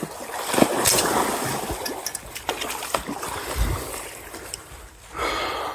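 Water splashing and sloshing with several sharp knocks, as a hooked snook thrashes at the water's edge.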